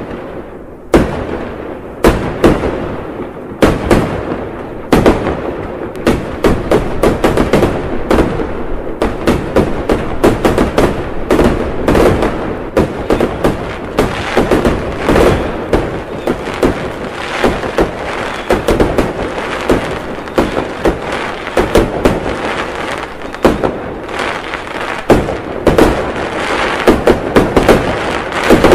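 Fireworks going off: single loud bangs about a second apart at first, turning about a third of the way in into a dense barrage of bangs and crackling that never pauses.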